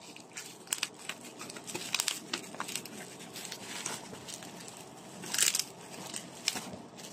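Plastic bubble wrap crinkling and crackling as hands pull and tear it open around a parcel, in many small scattered crackles with a louder rustle about five seconds in.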